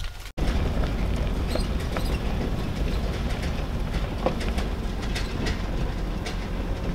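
Pickup truck towing a loaded flatbed trailer, heard from inside the cab: a steady low rumble of engine and road noise with occasional knocks and rattles.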